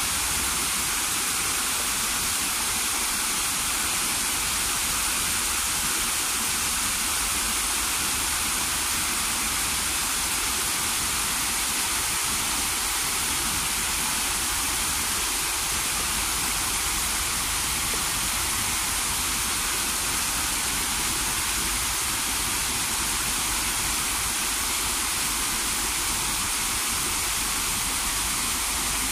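Water from small waterfalls cascading over rock steps and splashing into a pond: a steady, unbroken rushing sound.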